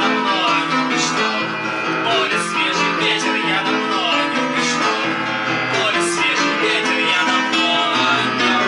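Instrumental music: acoustic guitar strumming steadily, with piano.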